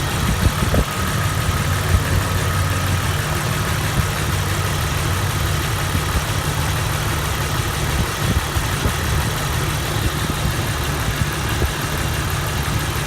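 Jeep TJ's 4.0-litre straight-six idling steadily once warmed up, with the knock that is loud at cold start now at most faint. The owner is unsure whether the knock is lifter noise or rod noise.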